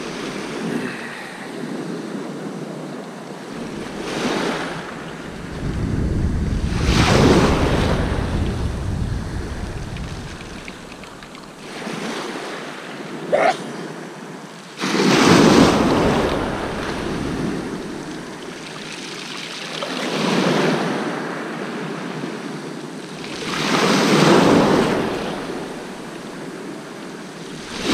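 Choppy sea waves washing in, swelling and fading every few seconds, with wind rumbling on the microphone at times. A short rising squeak about halfway through.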